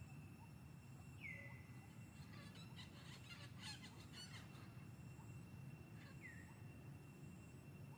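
Faint forest background with birds: a short whistled call sliding down in pitch about a second in and again near the end, and a brief run of quick chirps in the middle, over a faint steady high tone.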